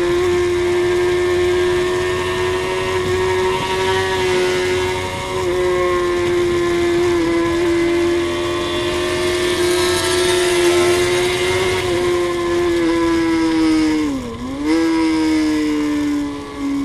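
Suzuki GSX-R inline-four sportbike engine running hard at high, nearly constant revs on track, heard from onboard with wind rush. About fourteen seconds in the engine note dips sharply and comes back, then holds a little lower.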